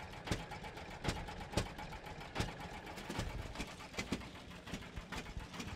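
An 1897 De Dietrich Spider's veteran engine running slowly, firing in sharp, evenly spaced beats about once a second.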